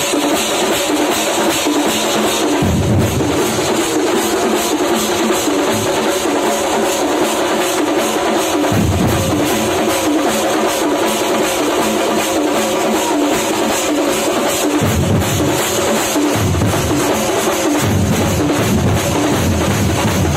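Kerala Thampola street percussion troupe drumming a fast, heavy beat, with dense rapid strokes and deeper booming passages coming in and out for a few seconds at a time.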